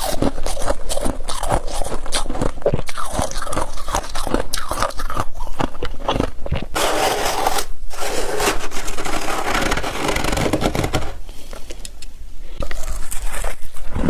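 Humidifier frost being crunched and squeezed in the hands and bitten, a dense run of crackly, squeaky crunches and scrapes with a longer unbroken crunch in the middle.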